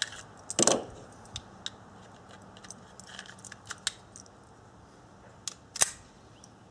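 Semi-automatic pistol being handled and loaded: a run of small mechanical clicks, with two sharper snaps, one about half a second in and one near the end, the second as the slide is racked.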